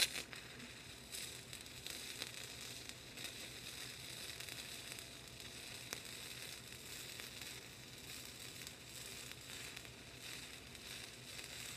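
Gasless flux-core wire welding arc on steel square tubing: it strikes with a sharp crack and then burns as a steady crackling hiss.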